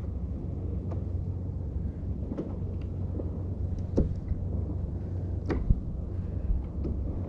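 Wind rumbling on the microphone and water slapping against a kayak hull on choppy sea, with a few light knocks about two and a half, four and five and a half seconds in.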